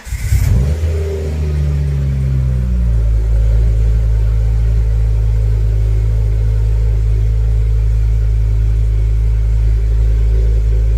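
Ford Focus ST's turbocharged five-cylinder engine catching on start-up, its revs flaring and then falling over the first few seconds before settling to a steady, even idle. It runs smoothly, with no misfire to be heard.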